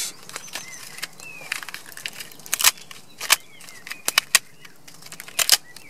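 A knife blade scraping and cutting dry birch bark against a wooden chopping block, a few short, irregular scrapes, cleaning clinging wood and dirt off the bark.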